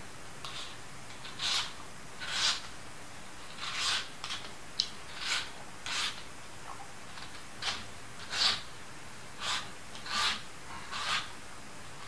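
Peeler scraping down the skin of a green plantain, short scrapes at about one a second, taking the peel off in strips.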